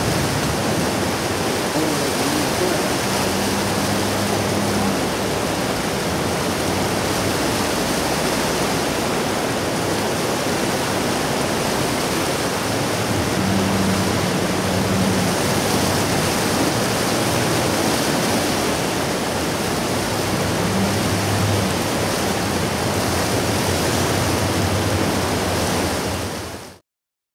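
Bow River in flood, a steady rushing of fast, high water, with a low hum coming and going a few times underneath. The sound cuts off suddenly near the end.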